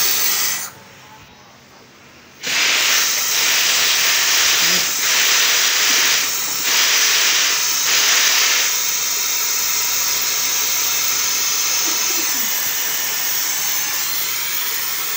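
Compressed-air suction tool hissing as it draws dirty carbon cleaner out of the engine's cylinders through the spark-plug holes. The hiss stops for about two seconds near the start, then runs steadily, swelling louder a few times over the next several seconds.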